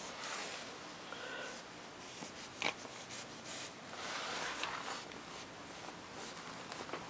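A cat rubbing its head and fur against a fabric catnip pillow and a ribbed doormat: faint scratchy rustling of fur on cloth and carpet, with a sharp click a little under three seconds in.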